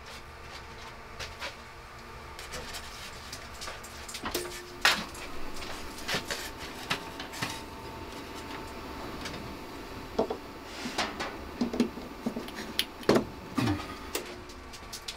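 Clicks and rattles of a power cord's plug being handled and pushed into a wall outlet, the knocks coming thicker in the last few seconds. A faint steady hum comes in about four seconds in.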